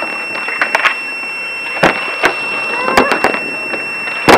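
A steady high-pitched electronic whine, with a scattering of sharp clicks and knocks, the loudest near the end, and faint voices.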